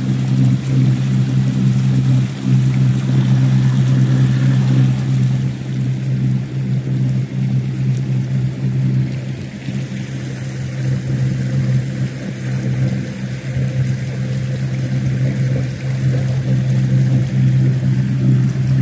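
Three outboard motors on an inflatable boat running steadily under way: a constant low hum, with water rushing along the hull.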